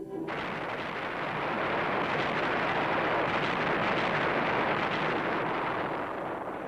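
Battlefield sound effect of shellfire: a steady rushing roar with no separate blasts standing out. It starts suddenly, swells slightly in the middle and eases near the end.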